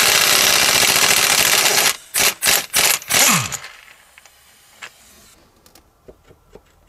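A handheld power tool hammering rapidly for about two seconds, then four short bursts, the last one winding down in pitch, followed by a few light clicks.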